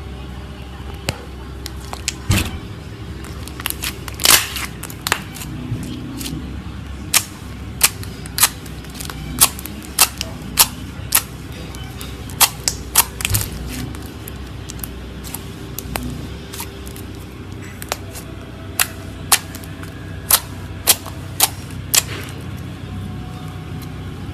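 Slime being pressed and worked by hand, giving sharp air-bubble pops and clicks at irregular intervals, one or two a second.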